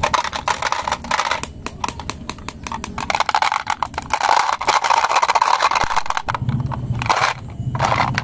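Glass marbles clattering and rattling against each other inside a toy garbage truck's plastic bin as the truck is lifted and tipped: a dense run of clicks for about six seconds. In the last couple of seconds a low steady hum comes in, with a few short scrapes.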